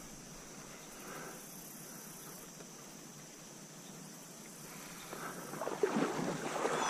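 Faint outdoor ambience with a steady high-pitched insect drone. About five and a half seconds in, a louder rough rustling and rushing noise starts and builds.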